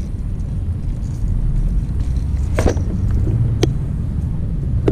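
Two sharp plastic clicks about a second apart, a clear plastic tackle box's latches snapping shut, over a loud steady low rumble.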